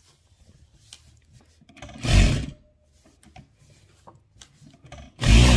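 Fabric being pulled and folded at a sewing machine, heard as two brief loud rustles, one about two seconds in and one near the end.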